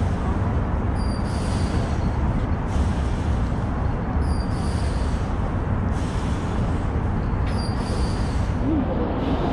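Steady rumbling wash of city traffic, with faint high chirps every few seconds.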